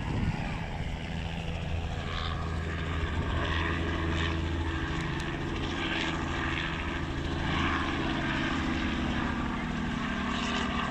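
A steady engine drone holding a constant low pitch, with a few faint high chirps now and then.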